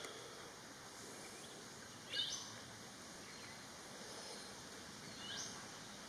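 Two short, rising bird calls about three seconds apart, high in pitch, over a faint steady hiss of forest ambience.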